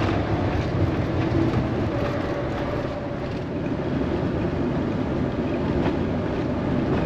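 Road and engine noise inside a Renault Master camper van cruising on a highway: a steady rumble of tyres and engine.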